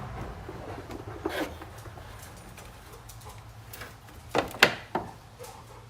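Sharp metallic clicks and knocks from hands and tools working on the engine's belt and tensioner area, over a steady low hum. The loudest are two quick knocks a little past four seconds in.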